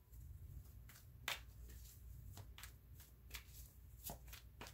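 Tarot deck being shuffled in the hands: a faint series of irregular card snaps and taps.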